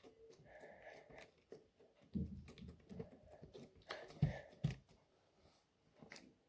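Scattered light clicks and taps from small objects being handled, with a few soft thumps about two and four seconds in.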